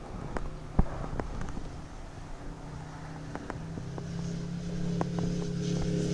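A road vehicle approaching, its steady engine hum and tyre hiss growing louder through the second half. Scattered light clicks, with a sharp click about a second in.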